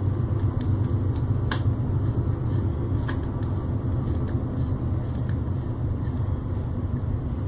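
Steady low rumble throughout, with two faint clicks, about one and a half and three seconds in, from a screwdriver working a small machine screw.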